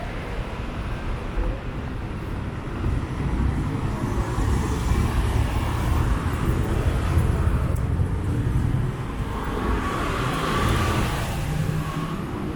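Road traffic passing: a steady low rumble of vehicle engines and tyres, with one vehicle swelling louder about ten seconds in.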